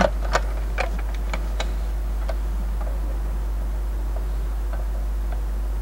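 Irregular sharp clicks from a handheld ANRI-01-02 'Sosna' dosimeter: a quick cluster of loud ones in the first second and a half, then sparser, fainter ones. A steady low hum runs underneath.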